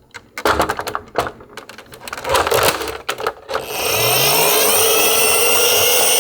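Plastic toy garbage truck handled with scattered light clicks and knocks, then from about four seconds in a steady, even motor whir.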